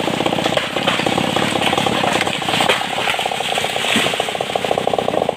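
Stihl MS381 two-stroke chainsaw idling after the cut, a steady fast rattling beat.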